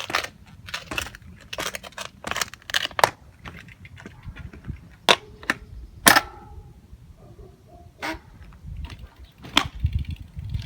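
A series of irregular sharp clicks and knocks, some twenty over about ten seconds, over a faint low rumble.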